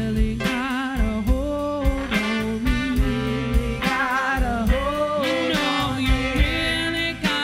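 A soul band playing: a female lead voice singing with vibrato over a steady drum beat, electric guitar and a saxophone and trombone horn section.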